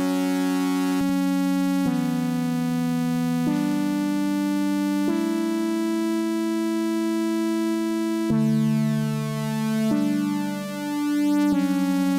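Novation V-Station software synthesizer playing an atmospheric keyboard preset: sustained chords, each held a second or more before the next. About two-thirds of the way through, a lower chord wavers and swells before a new chord comes in.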